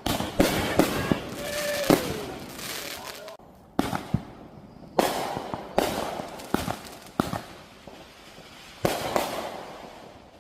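Aerial fireworks bursting in quick succession: about ten sharp bangs come at irregular intervals, each followed by a fading crackle and echo. A quieter spell comes near the middle, before a final burst near the end.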